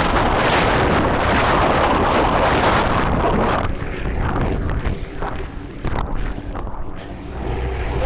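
Rushing roar of a giant breaking wave's whitewater, loud and steady, with wind buffeting the microphone. About three and a half seconds in it cuts off suddenly to a quieter, muffled churning.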